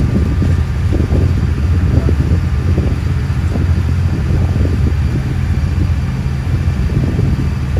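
Cruise boat's engine running steadily underway, a constant low hum.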